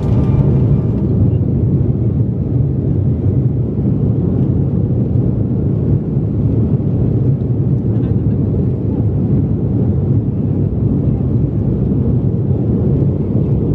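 Cabin noise inside a jet airliner rolling on the ground before takeoff: a steady, loud low rumble of the engines and the wheels on the pavement.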